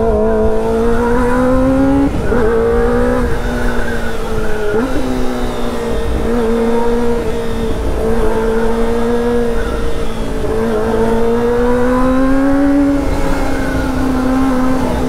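Kawasaki inline-four sportbike engine running under way at steady revs, its pitch climbing twice as the throttle opens, about a second in and again about ten seconds in, then dropping back each time. Wind rush is heard from the rider's seat.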